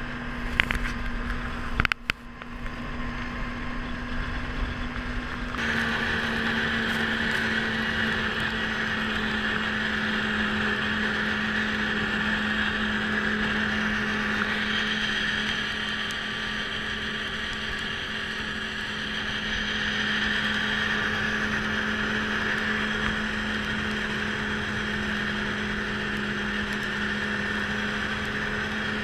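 Snowmobile engine running steadily at cruising speed, with rushing wind as the sled crosses the snow. There are a couple of sharp knocks in the first two seconds, and the engine tone shifts slightly about five and a half seconds in.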